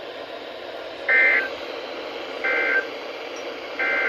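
Three short warbling data bursts about a second apart over steady radio hiss: the EAS end-of-message code, closing the NOAA Weather Radio severe thunderstorm warning.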